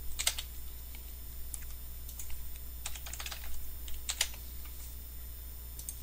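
Computer keyboard typing: irregular keystrokes, some singly and some in quick runs, over a steady low hum.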